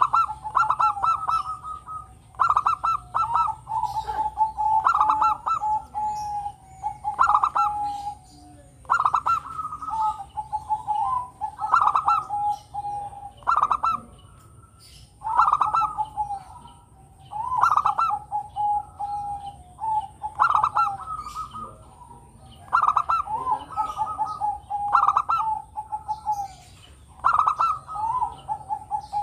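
Local-type zebra dove (perkutut lokal) singing its cooing song about a dozen times, a phrase every two seconds or so. Each phrase is a few short, clipped coos followed by a longer, lower, rolling trilled coo.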